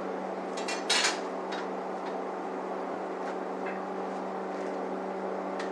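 A sharp metal clank about a second in, then a few light taps, as steel parts of a homemade chainsaw mill frame are set in place and squared. A steady hum runs underneath.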